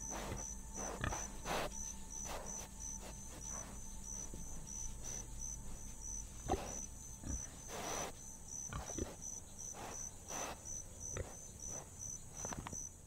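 Cape buffalo grazing, with irregular crisp tearing and crunching strokes as it crops dry grass. Throughout there is a high, even chirping pulse about twice a second.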